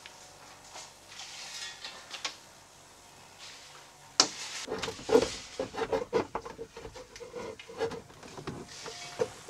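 Plastic mirror assembly being handled and fitted into a van door: faint rubbing at first, then a sharp click about four seconds in and a run of plastic knocks and rattles.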